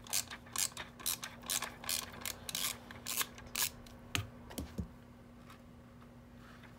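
Hard plastic clicking and scraping as a C5 Corvette climate control unit's case is worked open around its circuit board: a quick, uneven run of sharp clicks for the first four to five seconds, then they stop.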